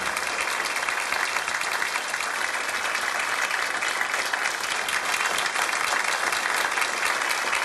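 Audience applauding: a room full of people clapping steadily.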